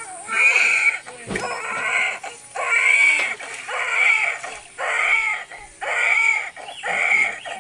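Newborn baby crying just after birth: a string of about seven wailing cries, roughly one a second. A single sharp knock comes about a second in.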